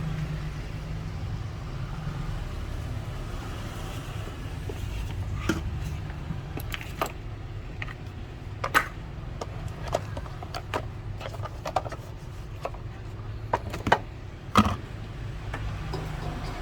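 Steady low hum with scattered light clicks and taps, the loudest two close together near the end.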